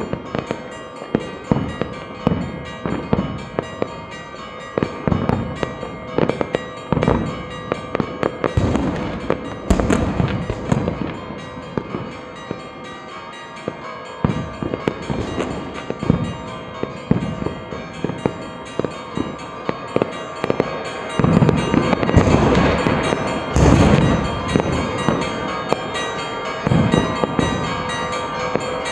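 Fireworks and firecrackers going off in many sharp bangs one after another, building to a dense crackling volley about two-thirds of the way through. Underneath, church bells ring steadily in celebration of the Resurrection.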